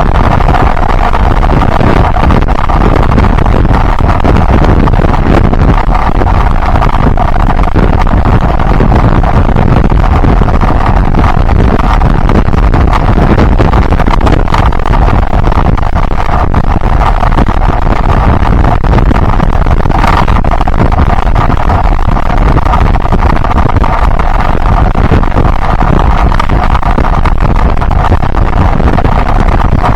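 Yamaha Byson single-cylinder motorcycle engine running steadily while riding, with strong wind rushing over the microphone.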